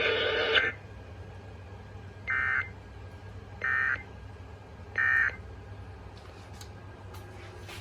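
Emergency Alert System end-of-message signal from a SAGE EAS ENDEC: three short bursts of warbling two-tone digital data (FSK), about a second apart, marking the end of the Required Monthly Test. Just before the bursts, the preceding message audio cuts off shortly after the start.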